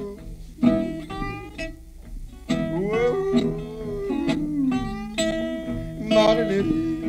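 Acoustic north Mississippi hill country blues: bottleneck slide guitar and harmonica, with plucked notes and long sliding, bending pitches.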